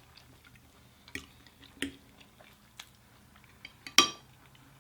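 Close-miked chewing of food with small wet mouth clicks, and one louder sharp clink about four seconds in.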